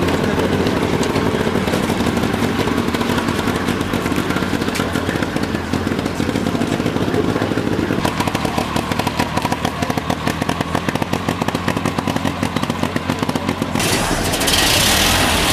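Vintage tractor engine running with a steady, rapid knocking of its firing strokes.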